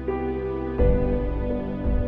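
Slow, soft background music of sustained notes, with a deep low hit about a second in and another near the end.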